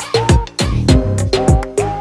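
Background music with a steady beat, its deep drum hits dropping sharply in pitch.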